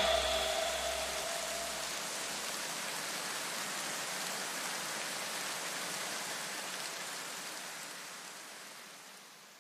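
A steady hiss like static or white noise. Faint ringing tones die away within the first two seconds, and the hiss fades out gradually towards the end.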